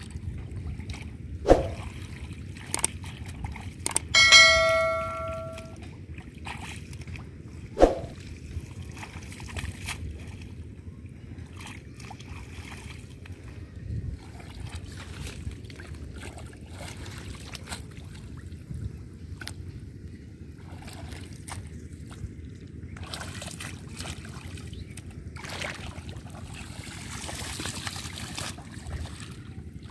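Shallow water sloshing and trickling around a person wading and handling a bamboo fish trap, with brighter splashing and dripping near the end as a clump of water hyacinth is pulled out. Two sharp knocks, one about a second and a half in and one about eight seconds in, and between them a ringing, bell-like tone lasting about a second and a half, the loudest sound here.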